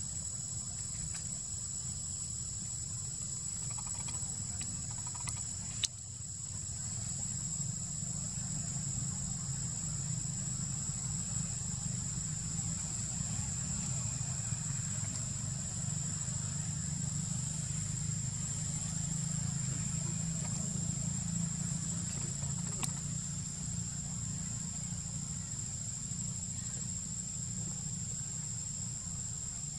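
A constant high-pitched insect drone at one steady pitch, with a low steady rumble underneath and a single sharp click about six seconds in.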